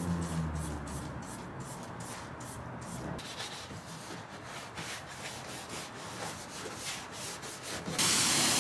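Hand scrubbing on a truck's plastic fender liner, a run of rubbing strokes. About eight seconds in, a pressure washer wand starts spraying the liner with a loud, steady hiss.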